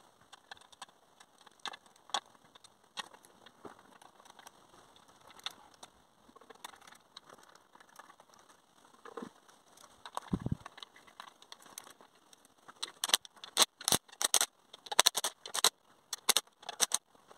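Scattered light knocks and clicks as hoses and fittings on a Rover V8 engine are handled, with a dull thump about ten seconds in. Then, from about thirteen seconds, a ratchet wrench clicks in quick runs as a rocker cover bolt is turned.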